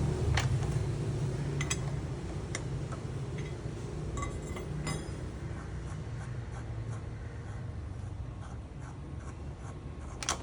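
Scattered light metallic clicks and clinks of wheel nuts and tools as a car's wheel is unbolted during a flat-tyre change, with a sharper click near the end. A low vehicle rumble fades out over the first couple of seconds.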